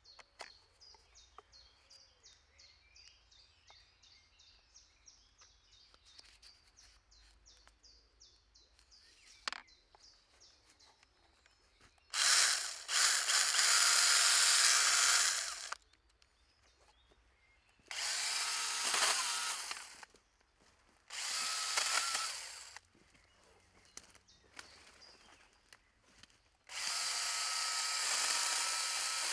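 Makita DUC101 18V cordless pruning saw with a brushless motor running in four bursts of two to four seconds each, starting about twelve seconds in, the last one running on to the end. Before the first burst there is a single click.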